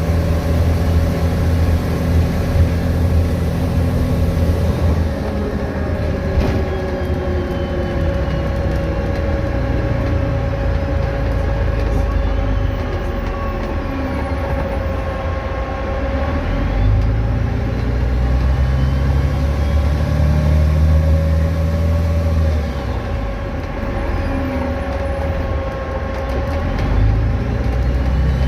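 VDL DB250 double-decker bus's diesel engine running at changing revs, with the electric cooling fan's steady hoover-like whine carrying on throughout.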